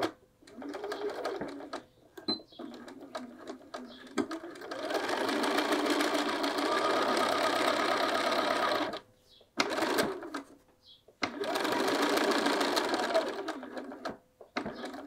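Bernina sewing machine stitching a straight line through a pocket layered on a fabric bag panel. It runs in stop-and-go stretches: a few short spurts at first, then a steady run of several seconds, a pause and a short spurt, and another steady run near the end.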